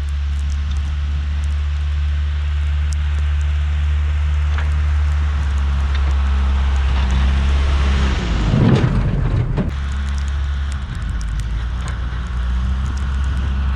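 John Deere 310G backhoe's diesel engine running steadily under load while plowing snow, with a gritty hiss and scattered clicks over it. The engine swells louder for a moment about eight seconds in, then settles back.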